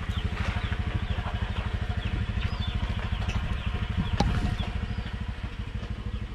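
Motorcycle engine running with a steady, even low putter, easing slightly quieter in the second half.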